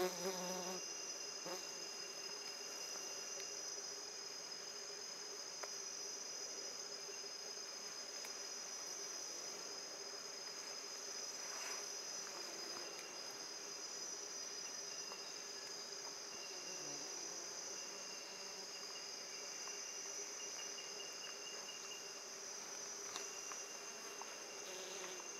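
Steady chorus of rainforest insects: a constant high-pitched buzz, with a fainter higher trill that comes and goes. A single sharp click right at the start.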